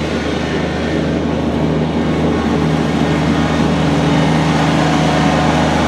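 Compact tractor's three-cylinder Kubota diesel engine running steadily, a little louder in the second half.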